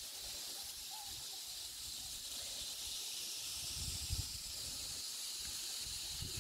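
Steady high-pitched chorus of insects, an even hiss with no breaks, with a few short low thumps about four seconds in.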